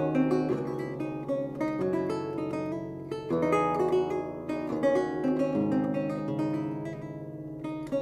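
Baroque lute playing: plucked melody notes and chords over long-ringing bass strings, with a brief lull just before the end.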